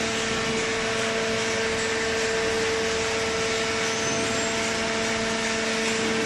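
Horizontal cardboard baler's hydraulic power unit running, a steady hum with a constant low tone over motor and pump noise.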